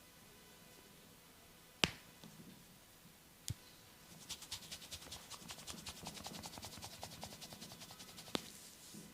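Massage hand sounds on skin: a sharp single click about two seconds in and a smaller one shortly after, then a quick run of light taps, about seven a second, for roughly four seconds, and one more click near the end.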